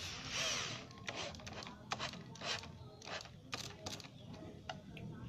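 Hand-held electric drill boring into a wooden board, running for about a second and then in a series of short trigger bursts.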